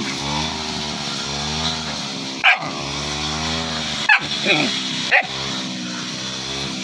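Puppy growling in a continuous low, wavering rumble while rolling about in play, broken by short sharp yaps: one about two and a half seconds in, then three more between four and five seconds in.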